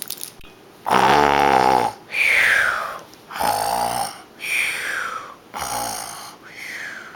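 A person making a cartoon-style snore with their voice, three times over: a rasping snore on the in-breath, then a falling whistle on the out-breath.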